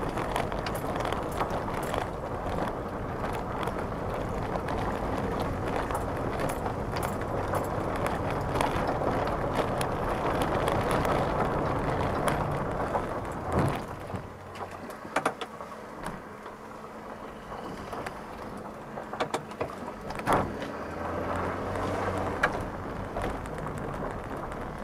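Cabin sound of a 1989 Mercedes-Benz 300 TE 4MATIC estate on the move: steady road and tyre noise with the engine underneath. About halfway through the noise drops clearly. What is left is quieter, with a few sharp knocks and rattles.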